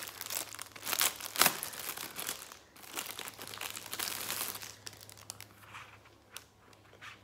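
Clear plastic wrapper crinkling as it is handled and pulled off a pack of notebooks by hand, loudest about a second in, then thinning to a few light rustles and ticks near the end.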